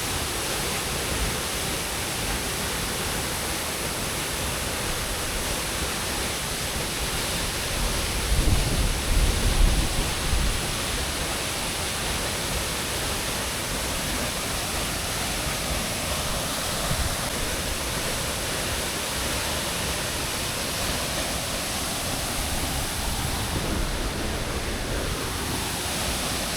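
Tumathi Waterfall on the Thiririka River, water falling and rushing in a steady, even roar. A loud low rumble rises over it for about two seconds, starting about eight seconds in.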